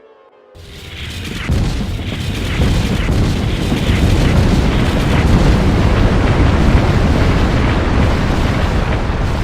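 Huge explosion sound effect: a deep rumble that swells up within the first second and a half, then holds loud and steady.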